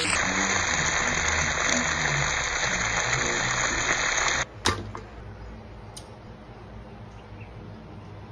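Chicken drumsticks sizzling in hot oil in a frying pan, a steady loud hiss that stops abruptly about four and a half seconds in. A sharp click follows, then only a faint hiss.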